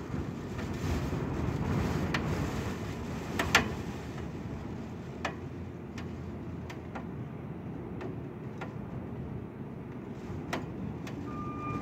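Wind gusting with a low rumble, strongest about two seconds in and then easing. Scattered sharp taps sound over it, the loudest about three and a half seconds in.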